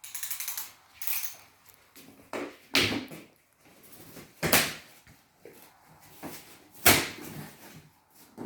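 Handling noise from unboxing: a series of knocks and scrapes from a box and its packaging, with a crinkly rustle at the start and the loudest knocks about 3, 4.5 and 7 seconds in.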